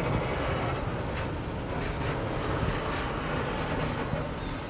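Last wagons of a container freight train rolling past and away: a steady rumble of wheels on rail that eases off slightly, with a few faint clicks.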